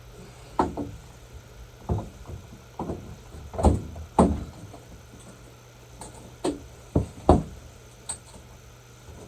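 A series of about nine irregular knocks and clunks over a steady low hum.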